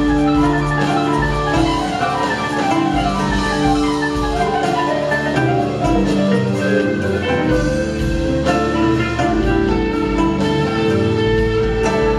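Live band playing an instrumental passage: drum kit and keyboards, with fast runs of short pitched notes over a regular low bass-drum pulse.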